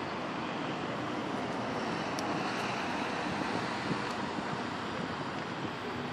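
Steady road traffic noise from a busy street.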